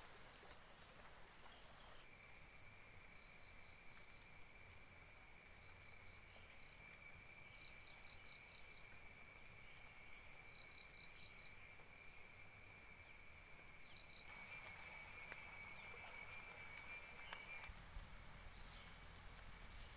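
Insects shrilling: a steady high-pitched drone with a fainter lower tone under it, broken by several short runs of rapid chirps. The drone starts abruptly about two seconds in, grows louder near the end and then cuts off sharply.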